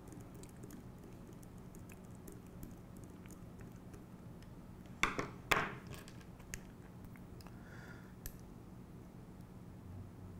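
Faint ticks and clicks of small metal screws and a nut driver being worked on a gearbox bracket, over a steady low room hum. About five seconds in come two short, louder knocks half a second apart, fitting the nut driver being set down on the work mat.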